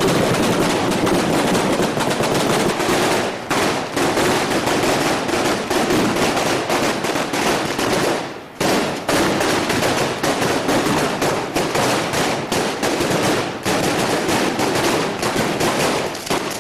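A long chain of firecrackers going off in rapid, unbroken crackling, with a brief break a little past halfway.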